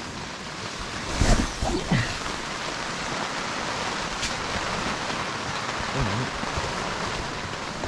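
Steady hiss of heavy rain and strong wind, with a few short knocks about a second in and once more around four seconds.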